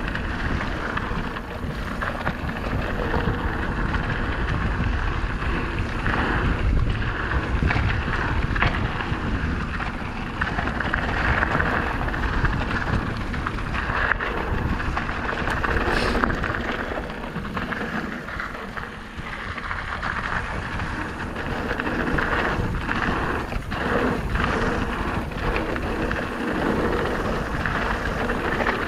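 Electric mountain bike descending a dirt and gravel trail at speed: a steady rush of wind on the microphone, tyres crunching over the dirt, and frequent small rattles and knocks from the bike as it rolls over bumps.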